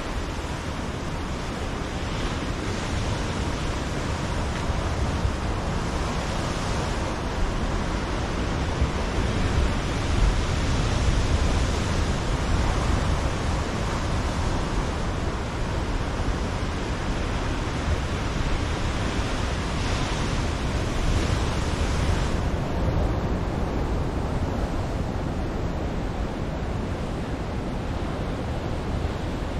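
Ocean surf breaking on a rocky lava shoreline: a steady wash of noise that swells several times as larger waves come in.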